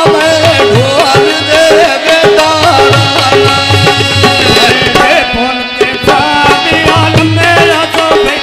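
Live folk music: a harmonium playing held chords under a male voice singing, with hand-drum strokes keeping a steady beat. A second male voice takes up the singing partway through.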